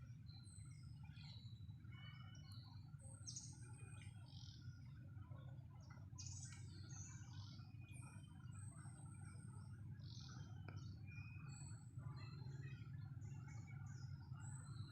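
Several birds chirping and whistling: many short, high calls overlapping all through, over a faint steady low rumble.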